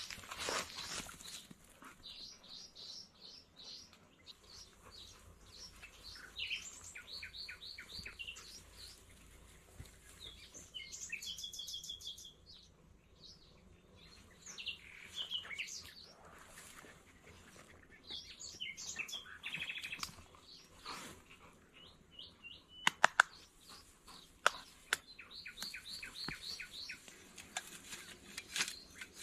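Small birds chirping and singing in repeated quick trills, with a handful of sharp clicks or knocks in quick succession about three quarters of the way through.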